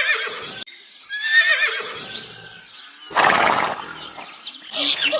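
Horse whinnying: a high, wavering neigh, heard twice, followed by a short, loud rushing blast about three seconds in. Near the end a different sound with sharp, repeated calls begins.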